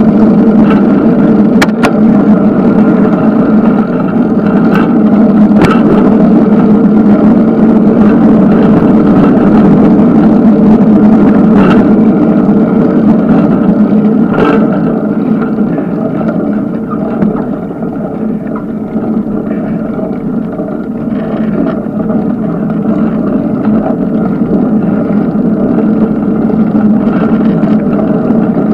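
Steady riding noise from a moving bicycle: tyre and wind noise on the camera's microphone, with a few sharp knocks from bumps. It eases a little about two-thirds of the way through.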